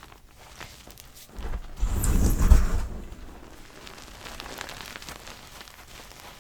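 Gym chalk being squeezed and crushed, giving soft crackles, with a louder, deeper crush from about one and a half to three seconds in.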